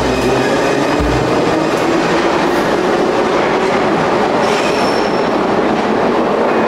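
Metro train pulling out of an underground station, its wheels running on the rails in a steady loud rumble, with a brief high wheel squeal about four and a half seconds in.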